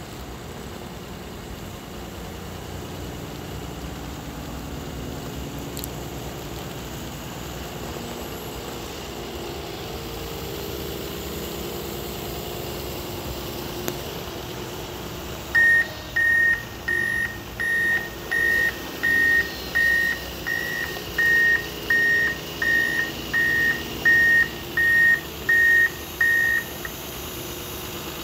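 Komatsu WA270-7 wheel loader's diesel engine running as the machine manoeuvres. About halfway through its reversing alarm starts: about sixteen loud, even beeps at a steady pitch, roughly one and a half a second, which stop a little before the end.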